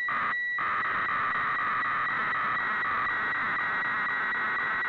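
HF radiofax (weather fax) signal from a shortwave receiver's audio: a steady, scratchy warbling tone with a faint regular beat as the weather chart is sent line by line, over band noise.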